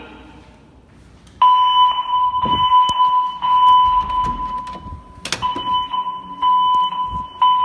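A voice-evacuation fire alarm's speaker strobes sound a loud, steady, high electronic alert tone. It starts about a second and a half in and breaks off briefly twice. A sharp click comes about five seconds in.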